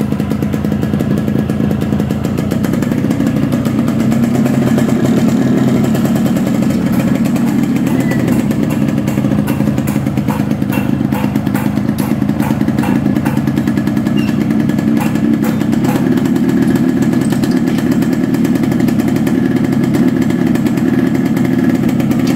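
Freshly rebuilt Yamaha RX Special two-stroke single-cylinder engine running steadily, a little louder after about four seconds.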